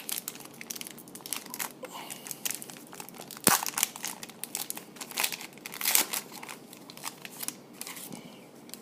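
Plastic-foil wrapper of a pack of football trading cards being torn open and crinkled by hand: irregular crackling, with one sharper crackle about three and a half seconds in.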